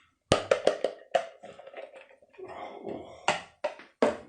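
Close-miked eating sounds of someone chewing and slurping octopus: a quick run of sharp wet smacks and clicks in the first second, softer chewing, then another few sharp smacks near the end.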